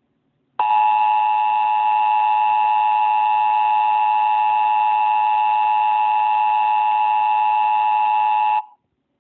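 Emergency Alert System attention signal: the harsh two-note EAS alert tone, starting about half a second in, held steady for about eight seconds, then cutting off. It marks the start of an emergency broadcast message.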